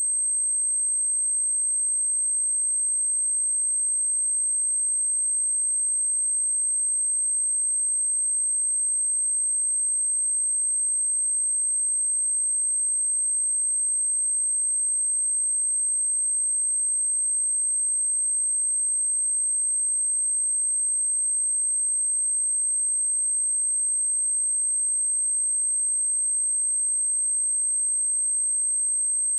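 A pure sine-wave test tone at 8311 Hz: one steady, high-pitched whistle that never changes in pitch or loudness. It is a speaker test tone, the kind played to check speakers or headphones and to shake water and dust out of a speaker.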